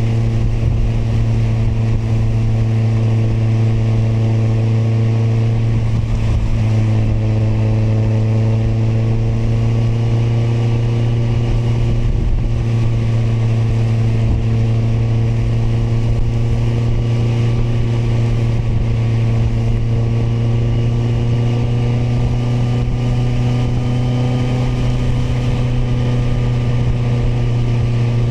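Kawasaki motorcycle engine running at a steady cruise. Its pitch shifts about six and a half seconds in, then slowly climbs.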